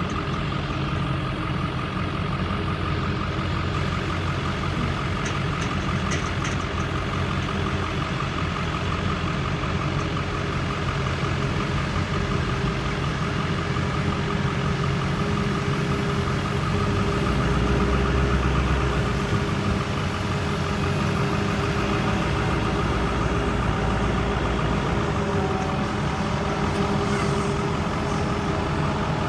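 Engine of heavy harvest machinery running steadily with a constant drone and a low swell about two-thirds of the way through.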